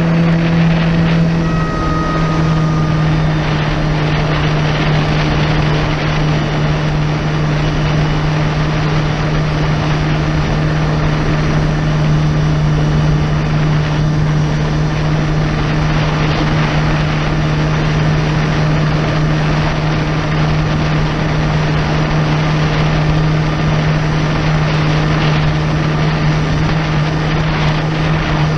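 Kawasaki Ultra 300X jet ski's supercharged four-cylinder engine running steadily under way, with the rush of wind and water spray over the handlebar-mounted microphone.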